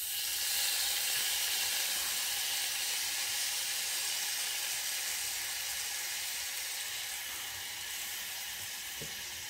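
Hot mixture of raw turmeric, ginger and green chillies coated in mustard-oil spice paste, sizzling in a kadai with the flame just turned off. The steady hiss swells as lemon juice is squeezed over it, then slowly dies down.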